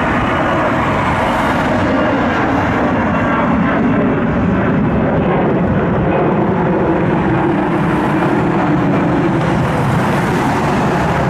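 Airbus A320 jet airliner's engines at takeoff power on departure: a loud, steady rush of jet noise that holds through the whole stretch.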